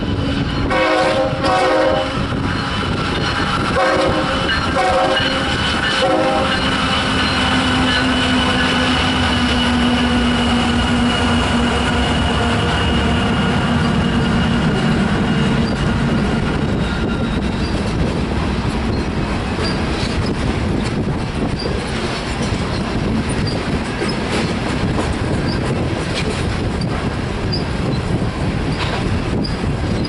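Diesel freight locomotive horn sounding a run of short blasts, then a long blast that fades as the locomotives pass. After that, loaded covered hopper cars roll by with their wheels clacking over the rail joints.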